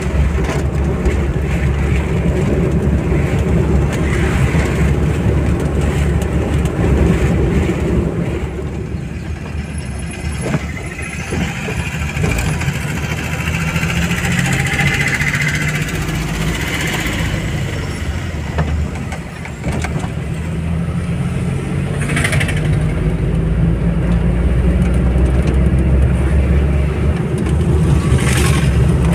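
Steady low rumble of a car's engine and tyres while it drives along a highway, with two short louder hisses in the last third.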